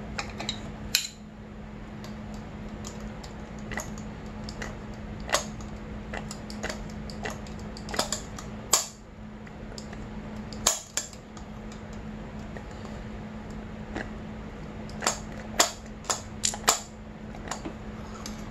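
Irregular sharp metallic clicks and taps of a steel tool working against the cam chain and camshaft sprocket in an open Honda CRF250R cylinder head, with a quick cluster of clicks about fifteen to seventeen seconds in.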